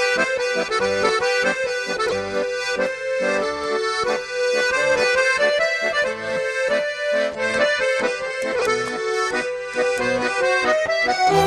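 Background music led by an accordion, playing sustained chords over a pulsing bass line, with a shift to a new phrase near the end.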